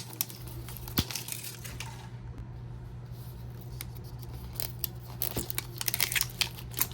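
Wrappers of a Mini Brands capsule ball being torn open and crinkled by hand: a sharp click about a second in, then denser crackling and tearing in the later part.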